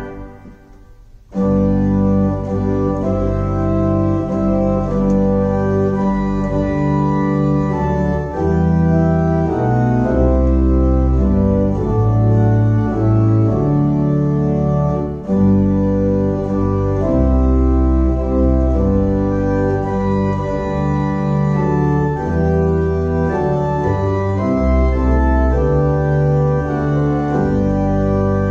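Church organ playing slow, sustained chords with deep bass notes underneath, the chords changing every second or two. It starts again about a second in after a brief pause.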